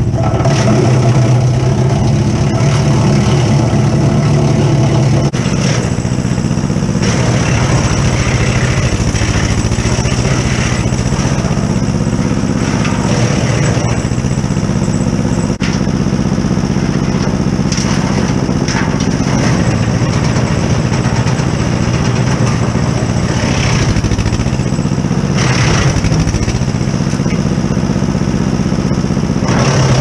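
1953 John Deere 40's two-cylinder engine running steadily under load, driving a TMG BX40S PTO wood chipper, with a few short noisy bursts of branches being chipped.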